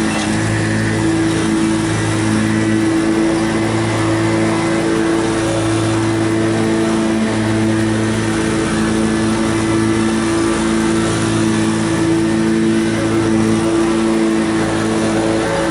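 Engine of an Exmark Turf Tracer walk-behind mower running steadily while mowing, with a low hum that swells and fades about once a second.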